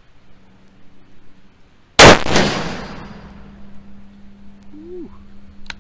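A single rifle shot from a Savage 110E bolt-action in .270 Winchester fitted with a muzzle brake, about two seconds in. The sharp report rings out and dies away over about a second.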